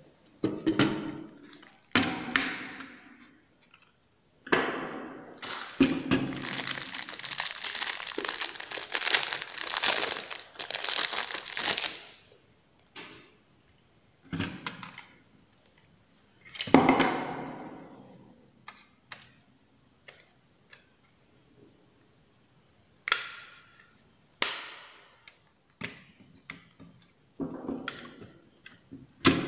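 Plastic clicks, snaps and knocks from a modular switch plate and its switch modules being handled, with a long stretch of dense crackling from about six to twelve seconds in.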